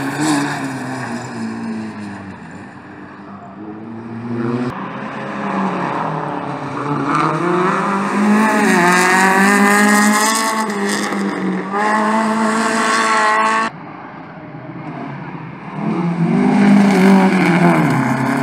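Rally cars' engines revving hard one after another, the pitch climbing and dropping with throttle and gear changes. The sound cuts off abruptly about two-thirds of the way in, then another car's engine rises and falls near the end.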